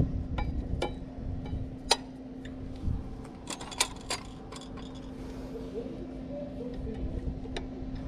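Small metal clicks and clinks of new brake pads and caliper parts being handled and fitted into a motorcycle's rear brake caliper, with parts picked out of a tray, over a steady low hum.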